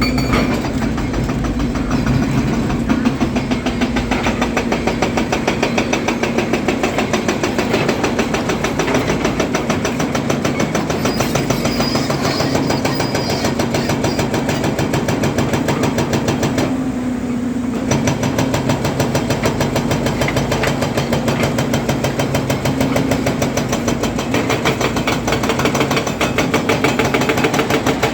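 Volvo EC300DL excavator's diesel engine running steadily with a fast even pulsing. The higher part of the sound briefly drops away about 17 seconds in.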